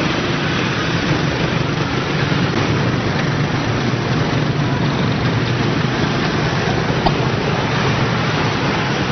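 Steady roadway traffic noise of motorbikes and cars passing, with a low engine hum underneath. A single brief click about seven seconds in.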